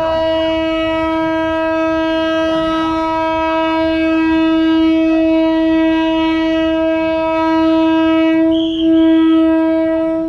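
A train horn holding one long, steady note at a single pitch, cutting off just before the end. A short higher-pitched sound joins it about nine seconds in.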